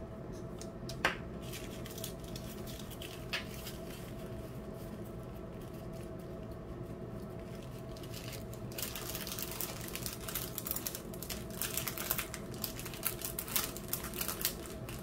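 Small plastic zip bags of rhinestones crinkling and rustling as they are picked up and sorted, with the stones rattling inside, from about nine seconds in. Before that there is only a steady low hum and a couple of light taps.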